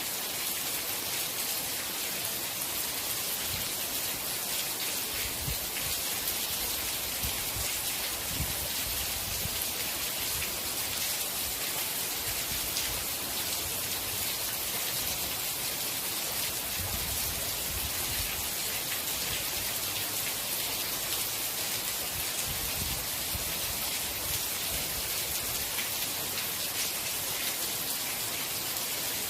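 Steady rain falling, an even hiss of many drops striking a surface, with a soft low rumble coming and going underneath.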